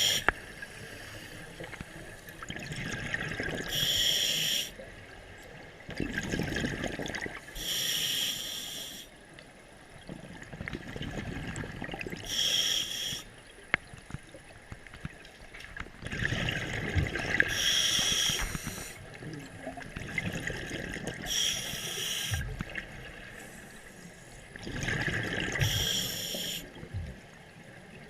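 A scuba diver breathing through a regulator underwater: a short hiss on each inhale and a bubbling rush on each exhale, the breath cycle repeating about every four seconds.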